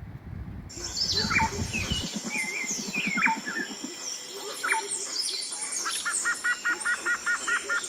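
Several birds singing and chirping: a few quick downward-sliding calls, then a rapid run of repeated paired notes about five a second, over a steady thin high tone. Wind rumbles on the microphone for the first two seconds.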